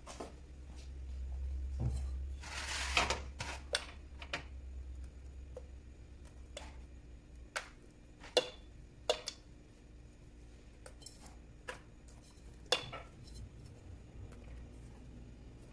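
Dishes and cutlery clinking and tapping in a series of scattered sharp clicks, with a short scratchy noise about three seconds in.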